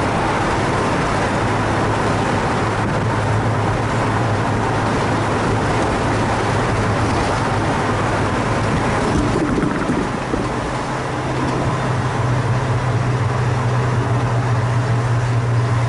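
1967 Ford Fairlane GT's V8 engine and tyre and road noise while the car is driven, a steady drone. About ten seconds in the level dips briefly, and the engine note then settles slightly higher.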